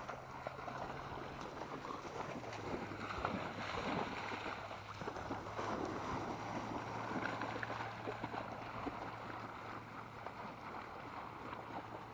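Water splashing and sloshing as dogs swim and run through shallow water, an irregular patter of small splashes.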